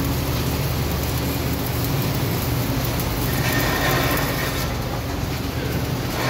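Stick-welding arc crackling steadily as the electrode burns, over a steady low hum.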